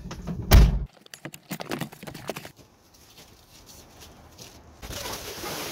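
Minivan rear liftgate slammed shut about half a second in, a single heavy thud heard from inside the vehicle, followed by a few light knocks and clicks. Near the end a steady hiss begins.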